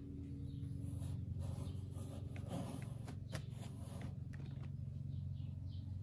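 A small kitten's claws scratching and scraping on cardboard as it scrambles out through a hole in a box, with a few sharp clicks in the middle. A steady low hum runs underneath.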